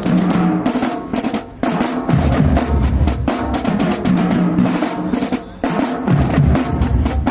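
Marching band drumline playing a cadence: snare drums with rolls and rimshots over pitched bass drums, breaking off briefly twice, about one and a half and five and a half seconds in.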